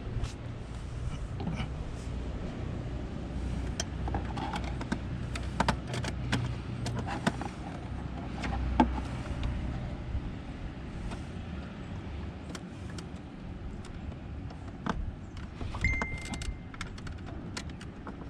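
Scattered light clicks and taps of hands handling parts on a car while checking a fuse that keeps blowing, over a steady low rumble. A short beep sounds near the end.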